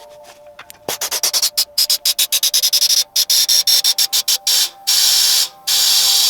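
A fast run of short rattling strokes, several a second, then several long hissing bursts, over background music.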